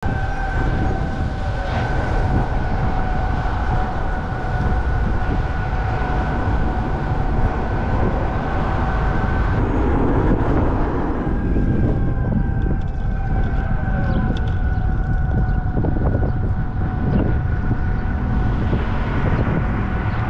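Road and wind noise from a car driving along a city street, heard from a low outside camera mount. A steady high whine runs through it and breaks off for a moment about halfway.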